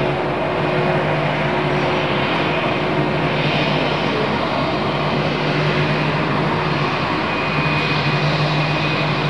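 Jet airliner engines running steadily: an even rush of noise with a low hum and a thin high whine.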